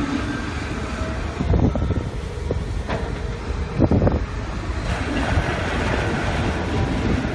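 Port crane's hoist machinery running with a low, steady rumble and a few clanks, as it slowly takes up the load of a full orange peel grab bucket.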